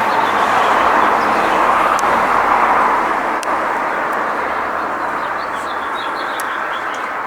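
Road traffic going by: a steady rush of tyre and road noise that swells over the first few seconds, then slowly fades. Small birds chirp faintly near the end.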